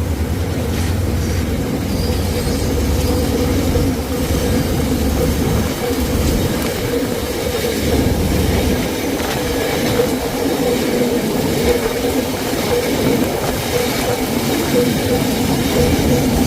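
A diesel train hauling long welded rails rolls past. A low engine rumble fades out about nine seconds in, leaving the wagons rolling with a steady whine from the wheels and scattered clicks over the rail.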